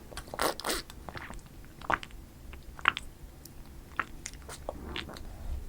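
Close-miked eating of strawberry cream cake: soft bites and wet chewing, a string of irregular small clicks and squishy smacks.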